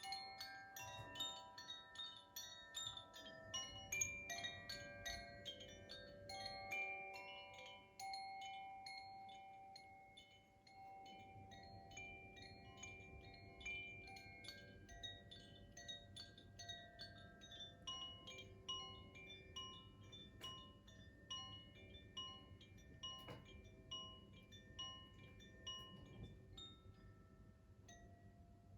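Koshi chimes being played: a shimmer of many light strikes with overlapping ringing tones. The strikes are denser in the first half and thin out and grow fainter toward the end.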